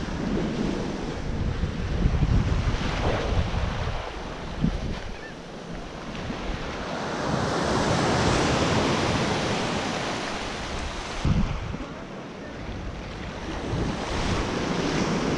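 Small waves breaking and washing up on a sandy shore, the surf rising and falling, with its biggest wash a little past halfway. Wind buffets the microphone with a gusty rumble.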